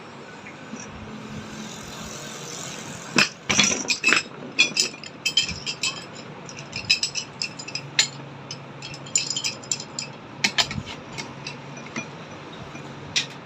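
Irregular metallic clinks and taps of tools and metal parts being handled while the churner is put back together, coming in quick clusters from about three seconds in.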